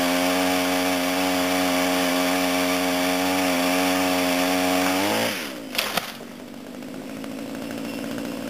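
Motorised pole saw running at full speed, cutting a sycamore branch, then slowing to a lower hum about five seconds in. Two sharp cracks follow just after it slows.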